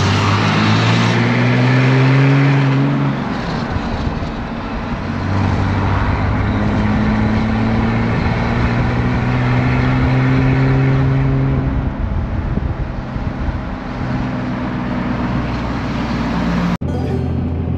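Pickup truck engine heard from inside the cab, towing a trailer and accelerating: its pitch rises, drops at a gear shift, then climbs again and drops at the next shift, over steady road and tyre noise. Near the end it cuts suddenly to music.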